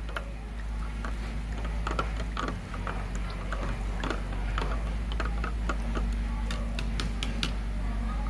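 A wooden stick stirring water in a thin plastic bottle, knocking and scraping against the plastic wall in irregular light clicks, a few a second, to dissolve a pH buffer powder.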